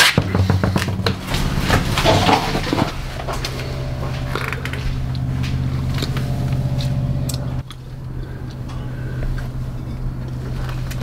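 Cordless impact wrench working on a truck's front-wheel lug nuts, with metallic clinks and clanks, then a steady mechanical hum that drops suddenly in level about seven and a half seconds in.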